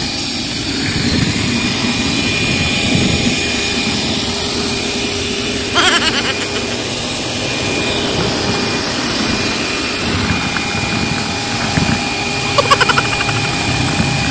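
A portable wet/dry vacuum cleaner's motor running steadily with a loud rush of air and a constant whine. Two brief louder noises break in, about six seconds in and again near the end.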